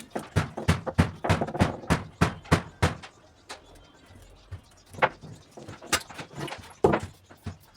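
A quick series of short knocks or strokes, about three a second, that stops after about three seconds and is followed by a few single knocks.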